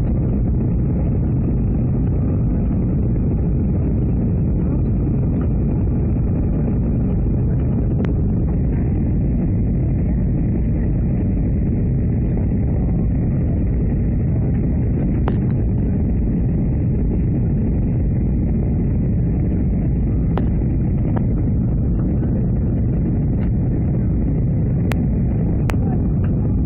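Steady, muffled low rumble of an Airbus A319's cabin in descent, heard through a covered microphone, with a few faint clicks.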